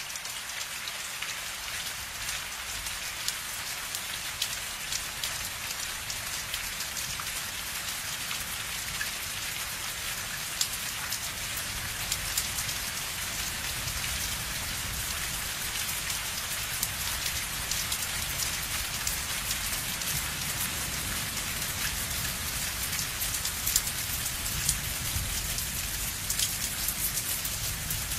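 Steady rain falling: a dense, even hiss packed with many small ticks of single drops. A low rumble underneath grows a little stronger toward the end.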